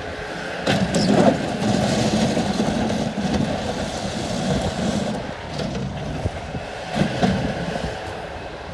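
Bobcat S185 skid-steer loader's diesel engine running. It gets louder about a second in, with a few sharp metallic knocks, then more knocks around seven seconds in, and eases back near the end.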